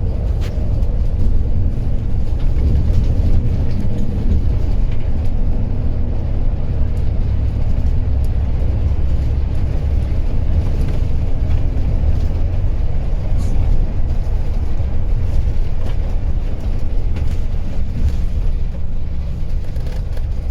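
Steady low rumble of a coach bus under way, heard from inside the cabin: engine and road noise, with scattered faint rattles and knocks.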